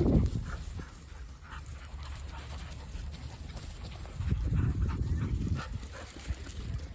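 Dogs panting and scuffling at play, with small scattered ticks and a louder stretch of low rustling about four seconds in.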